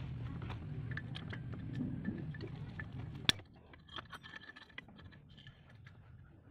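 Small metallic clicks and scrapes of a wrench working the bolts on a brush cutter's engine housing. A low rumble fills the first half and stops after one sharp click about three seconds in.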